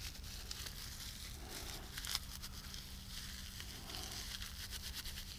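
Dry cedar bark and birch bark being rubbed and pulled apart between the hands into a tinder nest: a faint, dense crackling rustle of many small snaps, with one sharper snap about two seconds in.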